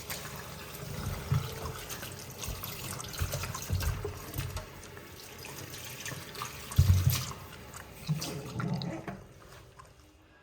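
Tap water running into a sink while things are handled and washed under it, with scattered clicks and knocks, the loudest about seven seconds in. The running water fades out shortly before the end.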